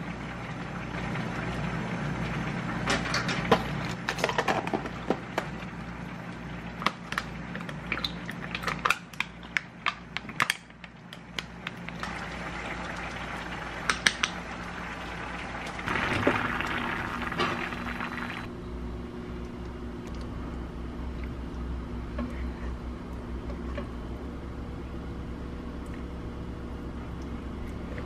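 Ice cubes knocking and clinking in a glass mug, then a drink being stirred in the glass with a brief noisy burst. A steady low hum runs through the second half.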